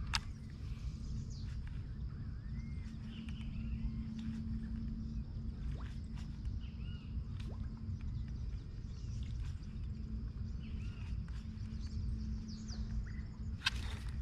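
Scattered short bird chirps and calls over a steady low rumble, with a brief sharp noise near the end.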